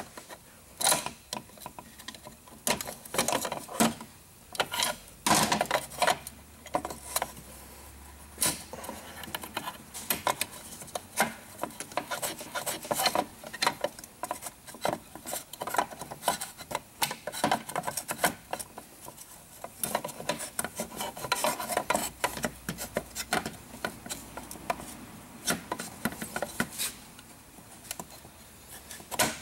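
Irregular clicks, taps and scraping of metal and plastic parts as a VW Mk4 short throw shifter assembly is worked by hand, its lever and springs being forced into place with a screwdriver.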